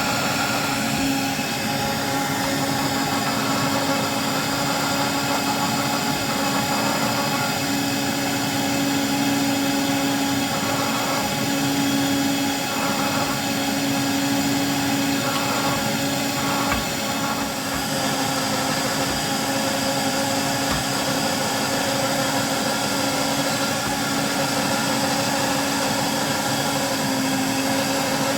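A small electric motor running steadily, an even whir with a constant hum tone that grows louder and softer a few times in the middle.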